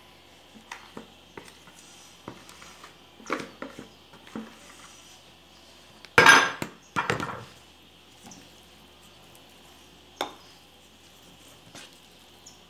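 Kitchen dishes and utensils being handled: scattered light knocks and clinks, with two louder clatters about six and seven seconds in and a sharp knock near the end.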